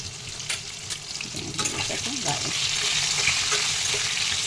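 Whole pointed gourds frying in hot oil in a karahi, sizzling steadily, with a couple of sharp clicks in the first second. The sizzle grows louder about halfway through.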